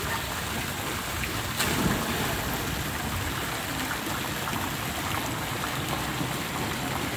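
Steady spatter of a pool fountain jet falling into the water, with a loud splash about one and a half seconds in as a person jumps into the pool.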